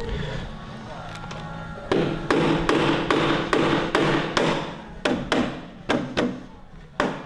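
Ratchet wrench running down the handlebar riser bolts, clicking in an even rhythm of about three sharp clicks a second, starting about two seconds in.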